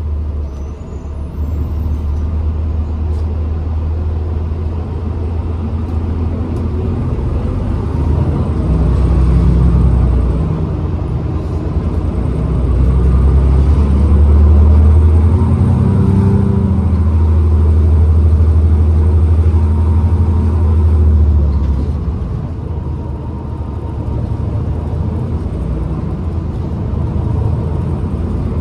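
New Flyer XDE40 diesel-electric hybrid bus running, its low drivetrain drone swelling twice, loudest in the middle stretch, then easing off.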